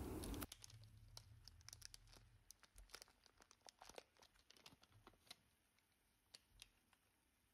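Faint crinkling and clicking of a Golden Curry roux pack's plastic tray and foil wrapper being handled and peeled open, in scattered irregular ticks. A faint steady hiss cuts off about half a second in.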